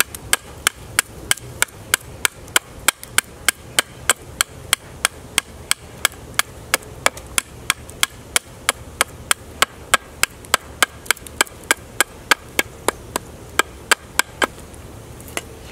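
A heavy chopper knife chopping into the handle of a wooden bow stave, roughing out the handle: a steady run of quick, sharp chops, about three a second, that stops about a second before the end.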